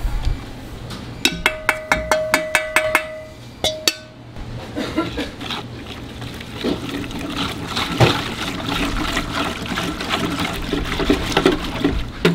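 Kitchen work sounds: a machine ticking about four times a second over a steady hum for a couple of seconds, then a long stretch of water-like sloshing with scattered clatter.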